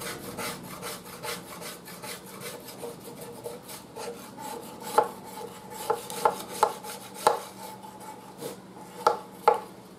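A flat scraper blade scraping paint that paint remover has softened off a metal radio cabinet. The paint is coming off only gradually. There is a steady rasping rub, and from about five seconds in the blade gives several sharp clicks against the metal that ring briefly.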